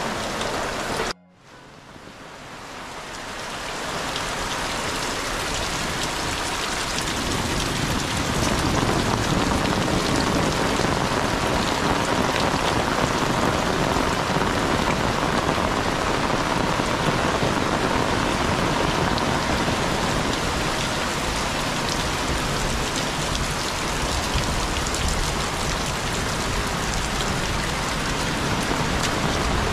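Heavy rain falling steadily. After a brief break about a second in, it swells back up over the next few seconds.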